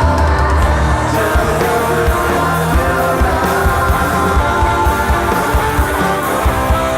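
Stoner/psychedelic rock band playing live: distorted electric guitars, bass and drums, with steady drum hits.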